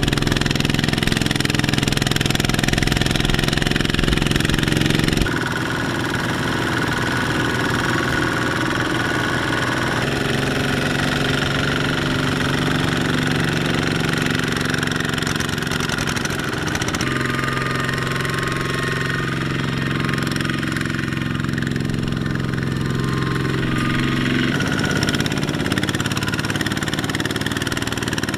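Single-cylinder diesel engine of a two-wheel walking tractor running steadily under load as it pulls a loaded trailer through a muddy rice field. The engine note changes abruptly a few times.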